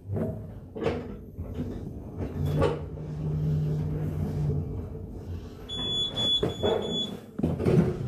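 Footsteps on a tiled floor, roughly one a second, with a steady low hum for a couple of seconds in the middle and a short high-pitched electronic beeping with breaks a little before the end.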